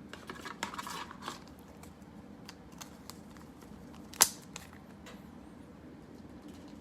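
Trading cards and their packaging being handled: light rustling and small clicks, with one sharper click about four seconds in.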